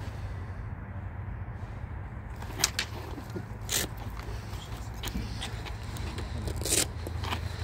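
Scattered sharp clacks from two fighters sparring with practice longswords in protective gear, the loudest near the end, over a steady low rumble.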